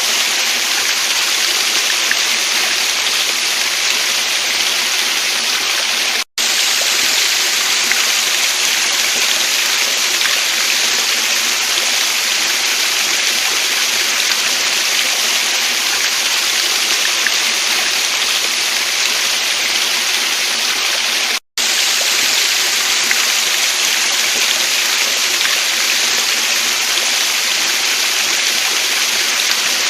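Steady rushing of a waterfall and stream, an even hiss with no pauses in the flow. The sound drops out to silence for a split second twice, about six seconds in and again some fifteen seconds later.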